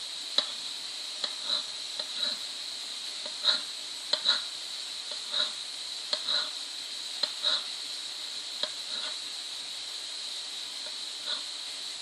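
Slip-covered hands working a wet clay bowl on a spinning pottery wheel: irregular short squelches and slaps of wet hands on clay, about a dozen of them, over a steady high whine.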